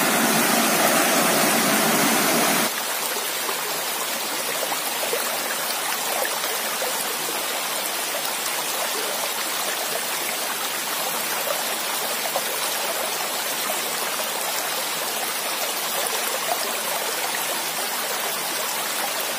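Shallow stream running steadily over rocks. About three seconds in, the water noise drops to a softer, even rush.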